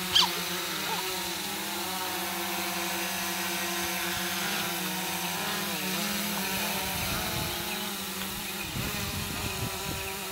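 Small quadcopter drone flying overhead, its rotors making a steady buzz that wavers up and down in pitch as it manoeuvres, weakening near the end. A brief high squeal just after the start.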